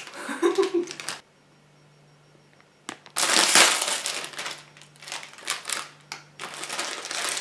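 Plastic snack wrapper being crinkled and torn open by hand: a dense crackling that starts about three seconds in, after a short quiet gap.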